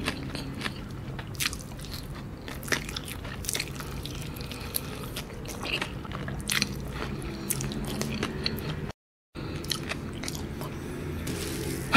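Close-miked biting and chewing of fried chicken in thick spicy sauce: scattered wet clicks and crunches as the meat is bitten off the bone and chewed. The sound cuts out for a moment about nine seconds in.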